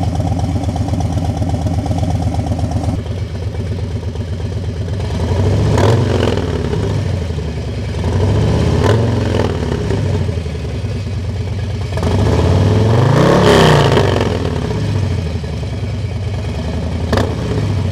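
Harley-Davidson Road Glide ST's Milwaukee-Eight V-twin through a Fuel Moto Contender 2-into-1 exhaust, idling and then revved with throttle blips. The revs come about 6, 9, 13 and 17 seconds in, each rising and falling back to idle, with the longest and highest rev about 13 seconds in.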